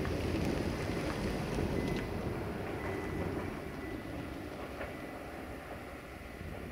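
Rumble of a diesel passenger train moving away along the line, fading steadily into the distance.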